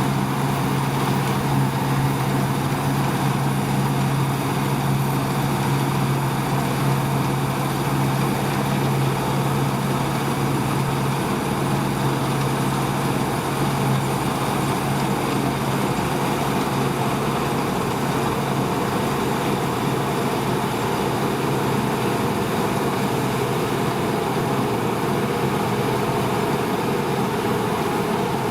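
Deutz-Fahr 5690 HTS combine harvester running steadily under load while cutting barley: a constant engine drone over the even mechanical noise of the header and threshing works. The low engine note eases back about twelve seconds in.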